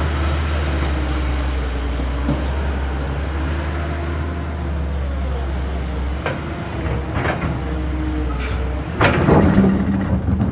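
Heavy diesel excavator running with a steady low drone, then several metallic clanks and knocks from about six seconds in, the loudest cluster of bangs coming about nine seconds in.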